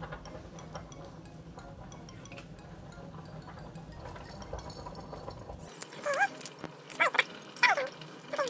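A small dog whining, four short high-pitched calls in the second half, each bending down in pitch. Before them there is only faint room noise with light clicks.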